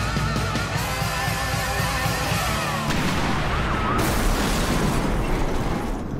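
Dramatic trailer music, joined about four seconds in by a sudden loud crash: a car flipping over onto its roof.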